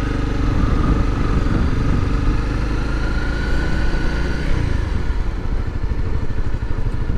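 Honda Rally 250's single-cylinder four-stroke engine running steadily as the motorcycle rolls along at low speed.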